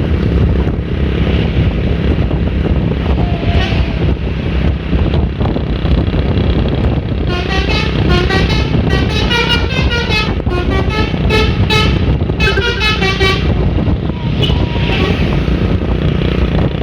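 Indonesian bus's multi-tone "telolet" air horn playing a quick tune of rapidly changing notes, starting about seven seconds in and lasting about six seconds, over a steady low engine rumble.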